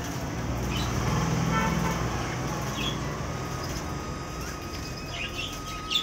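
A low steady rumble, strongest in the first couple of seconds, with a few short high chirps from hagoromo budgerigars in a wire cage scattered through it.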